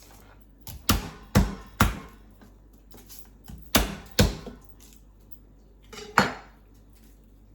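Kitchen utensils knocking on a chopping board and counter: about six sharp clacks, three in quick succession, then two, then one louder, longer one.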